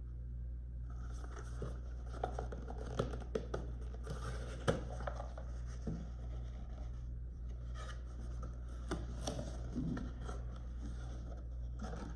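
A cardboard subscription box being opened and its contents handled: scratching, scraping and rustling of cardboard and packaging, with scattered small clicks, over a steady low hum.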